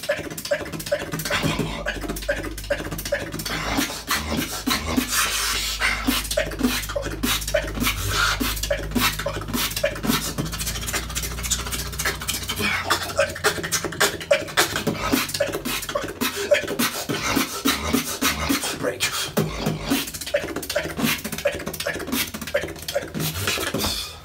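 Solo beatboxing: fast mouth-made kicks, snares and clicks in a tight rhythm. A sustained low bass hum runs under the percussion for roughly the first half, then drops out while the beat continues.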